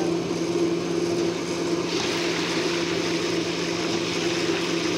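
Battered bread pakoras deep-frying in a large iron kadai of hot oil: a steady sizzle sets in about two seconds in. A constant low mechanical hum runs underneath.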